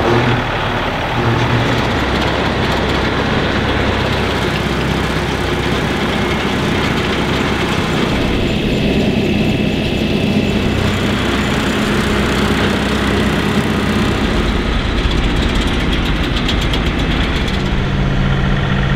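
John Deere compact tractor's diesel engine running steadily while it pulls a PTO-driven rotary cutter through tall grass.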